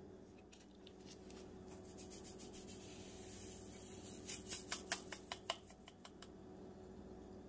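Faint kitchen handling sounds over a steady low hum, with a quick run of about seven light clicks and taps of kitchenware a little past the middle.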